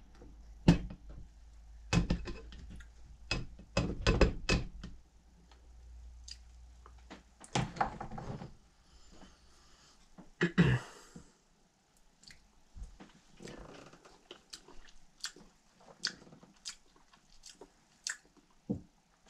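A metal spoon clinking and scraping in a blender jar as thick blended hot sauce is scooped out: a string of separate clicks and knocks, over a low hum that stops about seven seconds in.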